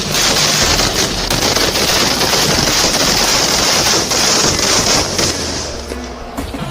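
Firecrackers going off in a dense, rapid run of bangs like machine-gun fire, thinning out and dying away near the end.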